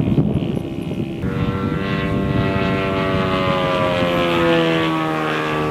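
Radio-controlled Cessna 182 Skylane model's engine and propeller droning in flight, the pitch sliding slowly down over a few seconds. Wind rumbles on the microphone during the first second.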